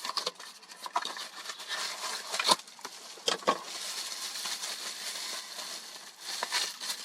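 Rustling and crinkling of packaging as an illuminated glass wall switch is handled and unwrapped, with a few sharp clicks and taps in the middle.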